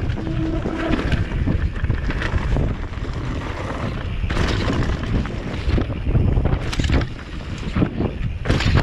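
Wind rushing over an action camera's microphone during a fast downhill mountain bike descent, with the bike's rattling and repeated knocks as it runs over rough, rocky trail.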